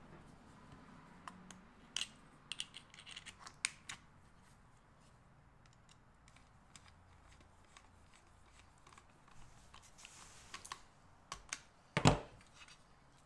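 Faint clicks and taps of a screwdriver working the terminal screw of a plastic 30 A shore power inlet while a wire is clamped in, with one louder knock on the workbench near the end.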